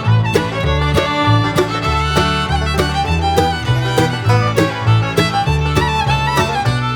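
Upbeat background music with fiddle and guitar in a bluegrass or country style, with a steady bass and beat.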